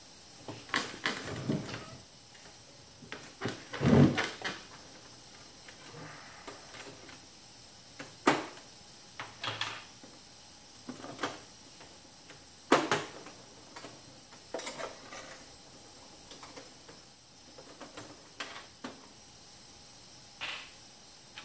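Scattered clicks and knocks of hands working on a sewing machine and handling its small parts, irregular, with the loudest knock about four seconds in.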